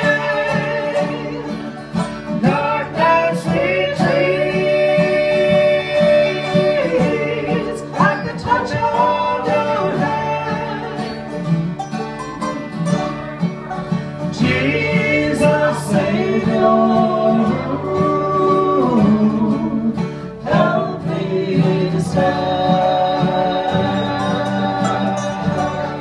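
Live bluegrass gospel band playing, with resonator guitar, mandolin and acoustic guitar under sung vocals.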